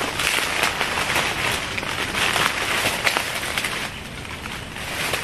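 Leaves and twigs rustling and crackling as a person pushes through dense undergrowth, a busy scratchy noise full of small snaps that eases off about four seconds in.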